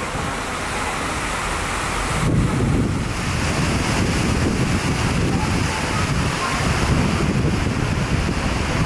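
Wind buffeting the microphone over the wash of the sea, getting louder about two seconds in.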